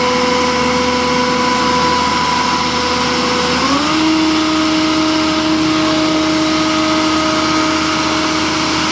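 Asphalt paving machinery running steadily with a loud engine and an even whine. The whine steps up in pitch about three and a half seconds in and holds at the higher pitch.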